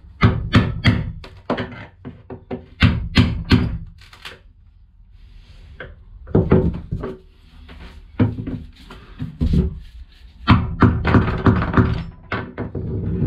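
Fibreglass coach roof cracking and knocking in irregular clusters of sharp cracks as a pry tool is levered into its cut seam to break it free; the cracking is "right cracky".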